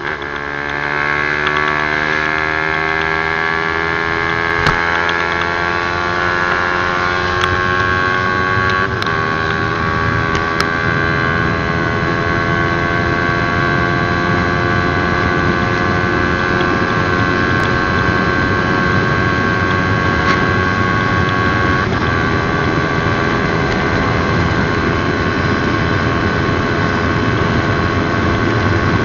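Honda CB150R's single-cylinder engine at full throttle through an aftermarket WRX R2 exhaust, its pitch climbing slowly over the first ten seconds or so and then holding nearly steady near top speed, with wind rushing past.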